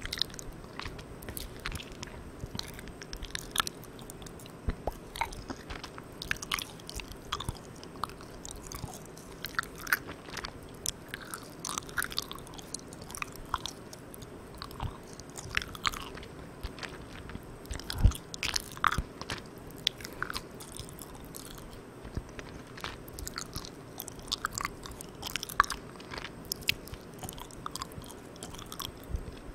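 Close-miked mouth chewing soft, sticky-chewy Malang Cow milk candy: irregular wet, sticky clicks and smacks, with one louder click about eighteen seconds in. A steady faint hiss underneath comes from the recorder's gain turned all the way up.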